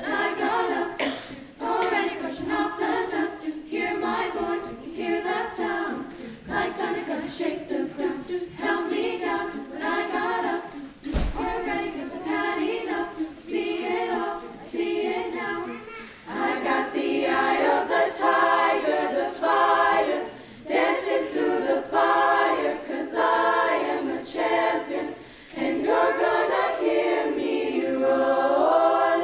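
Women's treble choir singing a cappella in phrases, the voices growing louder about halfway through.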